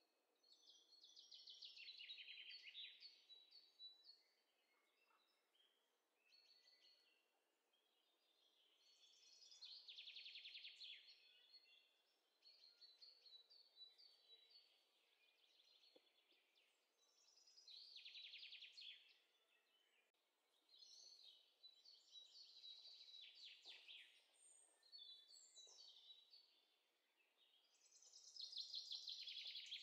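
Faint songbird singing: trilled phrases a couple of seconds long, repeating every several seconds over a soft background hiss.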